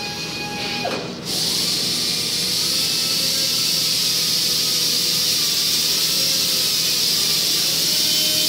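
A steady, fairly loud hiss that comes in abruptly about a second in, after a faint steady tone stops.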